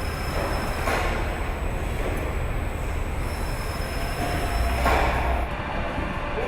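Car assembly plant machinery running: a steady mechanical din with a low hum and a faint high whine, swelling briefly about a second in and again near five seconds, like conveyors or rail-carried carriers moving along the line.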